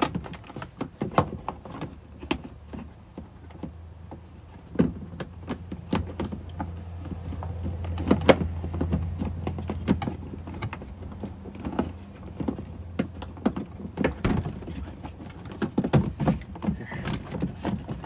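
Plastic clicks and knocks of a new flush water pump being worked back into its housing in a Thetford cassette RV toilet. A low steady hum runs through the middle of it; the pump itself is not yet wired up or running.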